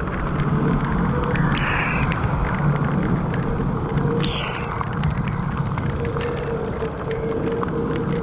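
Weped Fold electric scooter riding fast through heavy rain: wind buffeting the microphone and tyres hissing through standing water on the wet road, with scattered sharp ticks of water hitting the scooter. Two brief surges of hiss, about a second and a half in and again around four seconds, and a steady whine that is clearer in the second half.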